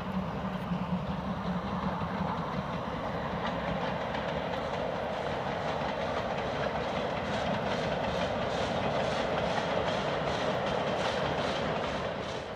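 Steam-hauled train passing by: a steady rumble of wheels on rail, with the wheels clicking over rail joints about three times a second through the second half, and the sound dropping away sharply at the end.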